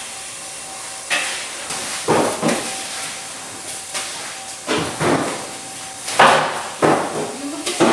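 A metal ladle clanking and scraping against a stainless steel stockpot, several irregular strikes with the loudest about six seconds in, over a steady hiss.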